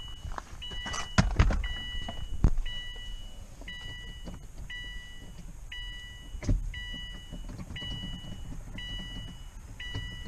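A repeating two-tone electronic beep, about once a second, over a low rumble, with several sharp knocks and thuds early on and another about six and a half seconds in.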